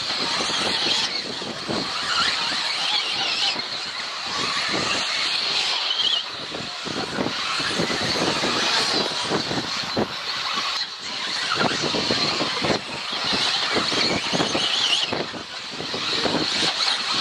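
Radio-controlled 4WD off-road buggies racing: a high motor whine that keeps rising and falling, with frequent short clatters and knocks of the cars running over the track.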